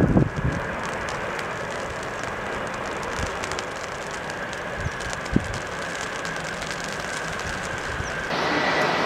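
MD-80-series jetliner's tail-mounted Pratt & Whitney JT8D turbofans running on the runway, a steady whine over a rushing noise, with a few low wind thumps on the microphone. Near the end it cuts abruptly to louder jet noise.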